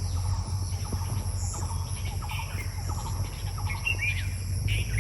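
Insects droning steadily in high, even tones, with short bird chirps scattered through, over a steady low rumble.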